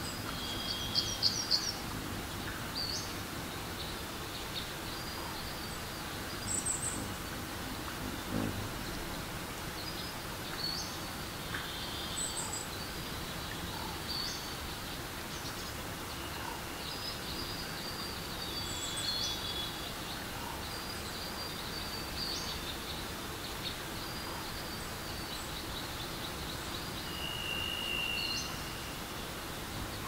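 Forest stream rushing over rocks with a steady rush, while songbirds chirp and call throughout: short high chirps, a quick trill about a second in, and a longer whistled note near the end.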